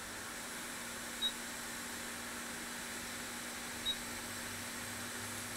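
Hot air rework station blowing steadily, a hiss over a low hum, while a shorted USB-C power IC is desoldered. Two short high beeps sound, about a second in and again near four seconds.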